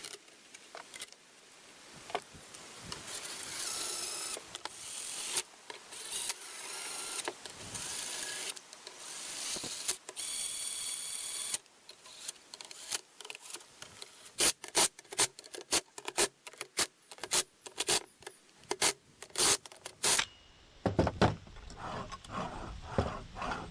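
Cordless drill running in several short trigger-pulled runs, driving bolts into a steel bracket. About halfway through this gives way to a series of sharp metal clicks and knocks as the steel parts are handled and slid together.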